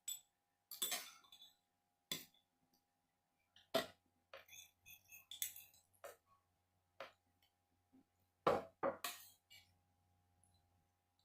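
Spoon and fork clinking and knocking against a plate and bowl while eating, in short scattered strikes with pauses between them, the loudest about eight and a half seconds in.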